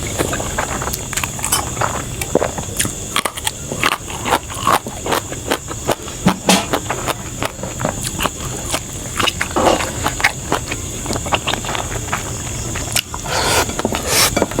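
A person eating close to the microphone: chewing with many irregular wet smacks and clicks, over a steady high-pitched hiss.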